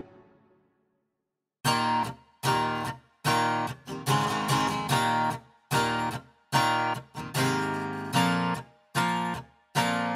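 Background music: a guitar strumming short chords in a steady rhythm, starting after a brief silence about a second and a half in, with an earlier passage fading out at the very start.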